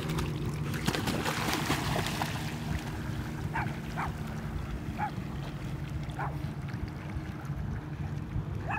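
Dogs splashing as they swim off through river water, the splashing close for the first couple of seconds and then falling away, over wind and a steady low hum. A handful of short high chirps sound in the second half.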